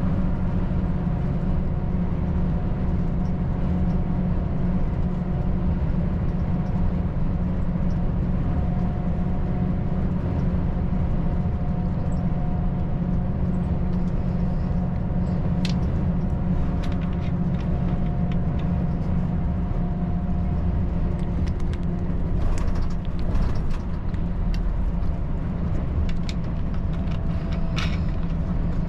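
Volvo FH 540 truck's inline-six diesel running at a steady cruise: a continuous low drone of engine and road noise with a faint steady hum over it. A few brief clicks come through past the middle and near the end.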